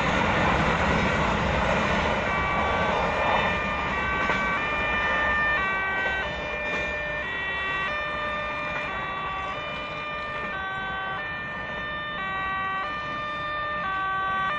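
A passing train's wheel noise fades over the first couple of seconds. Then an electronic railway level-crossing warning alarm sounds a repeating pattern of stepped tones, changing pitch about twice a second.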